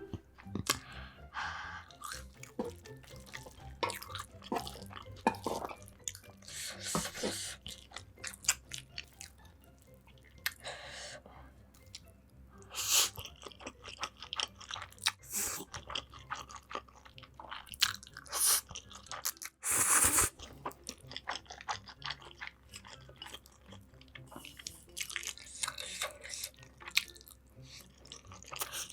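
Close-miked eating: steady chewing with crisp crunching bites and short wet mouth sounds.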